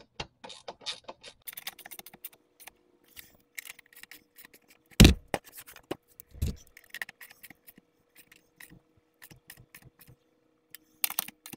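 Hands fitting a lower radiator shroud to the radiator supports from under a car: irregular small clicks and scrapes of the shroud and its fasteners being handled. A louder knock comes about five seconds in and another about a second and a half later.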